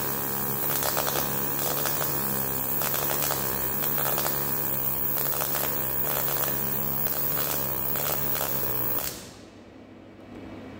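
MAG welding arc running a vertical-up weld: a steady, dense crackling with a low hum underneath. It cuts off suddenly about nine seconds in as the arc is stopped.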